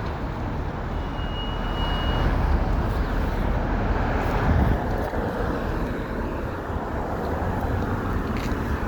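Steady road traffic on a busy boulevard, vehicles passing continuously. A thin high whine is heard briefly about a second in.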